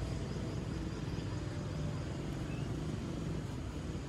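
City street traffic: a steady rumble of cars and motorcycles driving along the avenue.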